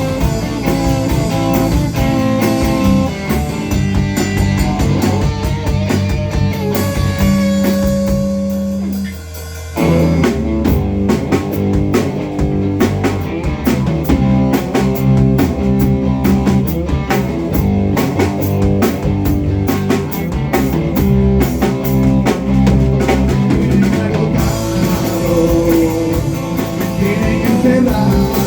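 A band playing a song live in rehearsal, with guitar and drum kit. About nine seconds in, the music thins for a moment, then the full band comes back in with the drums hitting hard.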